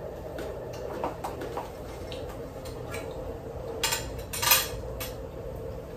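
Cutlery and serving utensils clinking and scraping against plates during a meal, with a louder clatter about four seconds in as food is served. A steady hum runs beneath.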